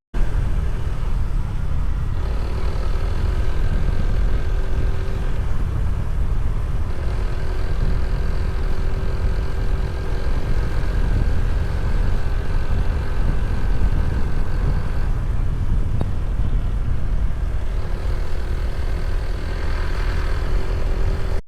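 Motor vehicle on the move: a steady engine hum that shifts pitch a few times, over a heavy low rumble of wind and road noise.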